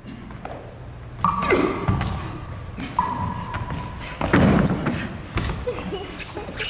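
Several heavy thuds of bodies landing and striking a stage floor during acrobatic partnering, with a high ringing note lingering after some of them.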